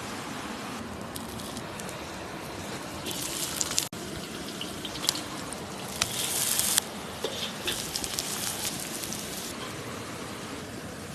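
A steady rush of flowing water, with two short bursts of high crackling about three and six seconds in and a few sharp clicks.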